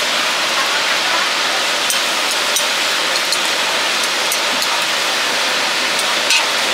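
Oyster omelettes frying in oil on a large flat griddle, a steady sizzling hiss, with a few light clicks of a metal spatula against the griddle.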